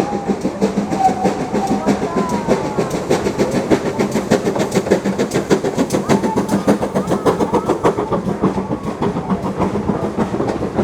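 Steam-hauled heritage train passing close by. Its wheels clatter rapidly and continuously over the rail joints, over a steady low hum, with a few short wheel squeals.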